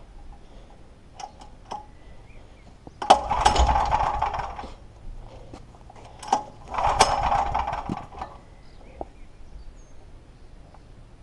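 Clarke FG5100ES generator's 13 hp engine being pull-started twice, each pull about a second and a half of recoil starter and cranking noise; the engine turns over but does not catch. Small clicks and knocks come between the pulls.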